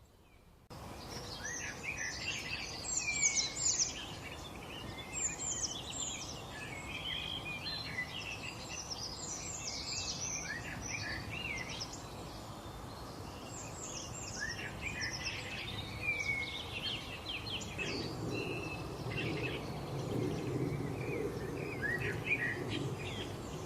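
A flock of small birds chirping and chattering over one another, with quick overlapping calls and short whistles that start abruptly. A low rushing noise joins the calls for the last few seconds.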